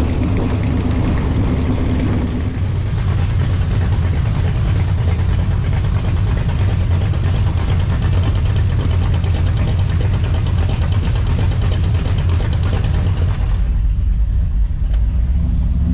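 Vehicle engine running with a steady low rumble. A rushing noise rides over it from a couple of seconds in until near the end, then drops away.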